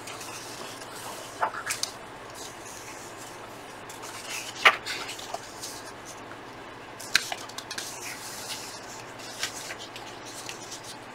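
Pages of a paper magazine being turned and pressed flat by hand: soft paper rustling with a few short, sharp snaps. The loudest snap comes about four and a half seconds in.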